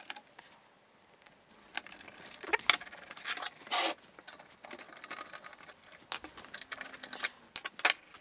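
Scattered small clicks, scrapes and metallic rattles of a screwdriver and loose screws being handled while the analog board is unscrewed from a Macintosh Classic's metal chassis. The sharpest clicks come about two and a half and almost four seconds in.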